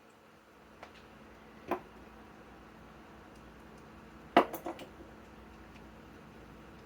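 A few light clicks and knocks of tools and fasteners being handled, the loudest about four and a half seconds in, over a faint steady hum. No impact driver or wrench runs.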